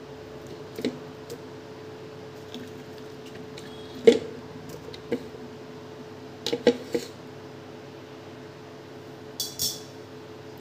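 Peeled sweet lime segments dropped into a plastic mixer jar: scattered light knocks and clatters, a cluster of them near the middle, and a short rustle near the end, over a steady hum.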